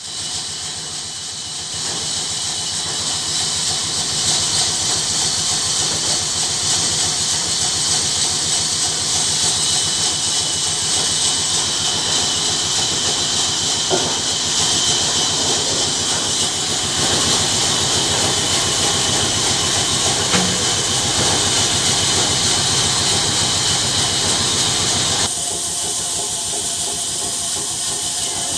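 24-inch vertical bandsaw running, a steady loud hiss with a fine rapid rattle underneath; the tone changes about 25 seconds in.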